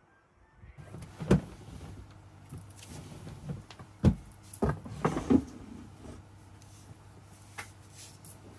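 Plastic storage drawers being pulled open and pushed shut, with a series of sharp knocks and clatters, the loudest about a second in and again between four and five and a half seconds in. A low steady hum runs underneath.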